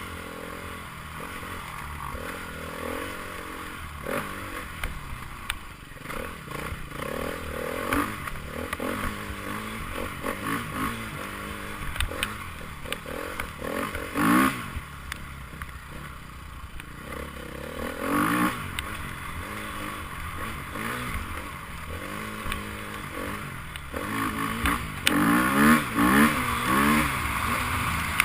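Enduro motorcycle engines running and revving, with sharp rising revs about halfway through and a cluster of quick revs near the end.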